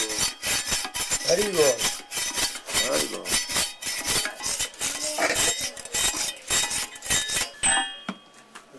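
Rapid, repeated scraping and knocking of a metal tool against a metal casting, several strokes a second, clearing baked clay mould off it; the strokes stop shortly before the end. Voices come in briefly between the strokes.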